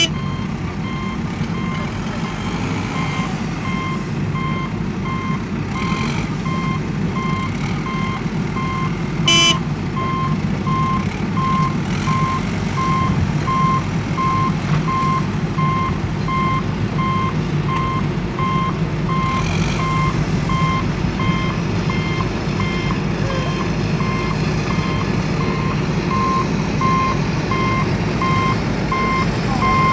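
Reversing alarm of a heavy machine beeping steadily at an even pace over a diesel engine running, with one short sharp clank about nine seconds in.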